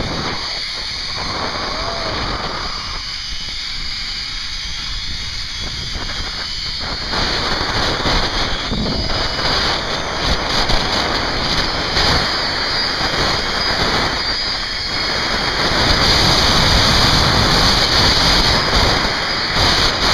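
Wind rushing over the microphone together with the zipline trolley's pulleys running along the steel cable, a continuous rushing noise that grows louder over the last few seconds.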